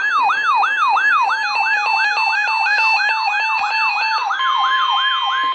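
Emergency alert attention signal on a broadcast: an electronic siren-like tone that falls quickly in pitch over and over, about three sweeps a second, over steady tones. About four seconds in, a steady single tone joins it, and it all cuts off abruptly at the end.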